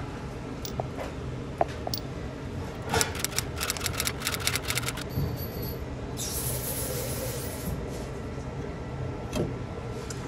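Freezer condensing unit running with a steady low hum. About three seconds in comes a run of rapid clicking and rattling lasting a couple of seconds, and about six seconds in a high hiss that lasts around two seconds.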